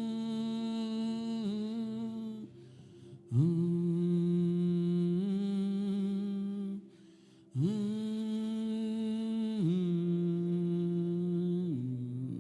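Slow, sustained humming-like worship music of long held tones: three phrases a few seconds each, separated by short breaks. Each phrase slides up into its first note and steps to a new note partway through.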